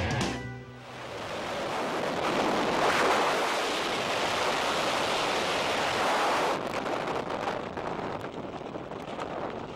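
Wind rushing over the camera microphone during a skydive: a loud, even rush that builds over the first few seconds, holds steady, then turns gusty and uneven after about six and a half seconds.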